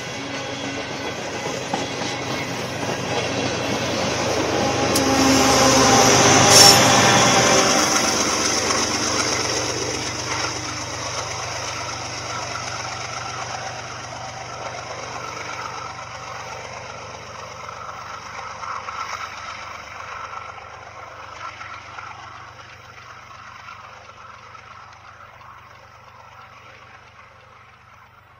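BNSF freight train's cars rumbling and clacking past, the loudest moment about six or seven seconds in as a diesel locomotive at the rear of the train goes by. Its low engine hum then fades steadily as the train moves away.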